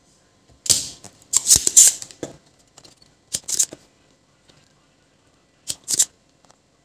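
Spring-loaded desoldering pump being cocked and fired against the board, sharp snapping clicks in about four bursts, sucking solder off the pins of a rectifier diode suspected of being shorted.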